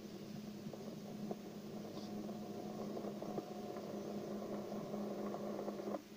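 Steady low electrical hum with a hiss of noise on an open radio channel, a few faint clicks through it. It stops abruptly shortly before the end.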